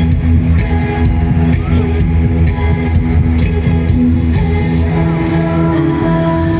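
Loud live pop music over a concert sound system, with a woman singing.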